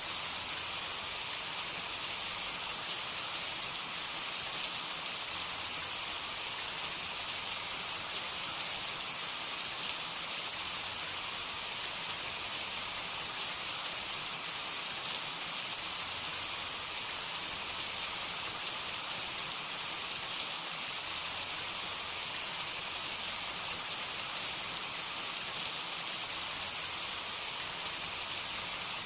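Samosas and spring rolls deep-frying in hot oil: a steady sizzle with small scattered pops and crackles.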